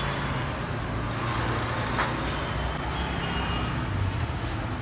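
Street traffic noise, with a minivan's engine running as it passes close by: a steady low hum over the general noise of the road. There is a single short click about two seconds in.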